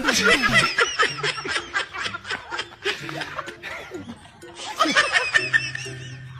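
Quick, high-pitched laughter over background music with low steady notes; the laughter fades about four seconds in and comes back near the end.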